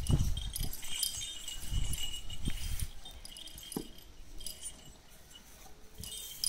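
Two young Ongole cattle sparring head to head, the ornaments on their collars jingling as they push and twist. Low thuds and scuffing come mostly in the first three seconds, then it quietens to light clinks.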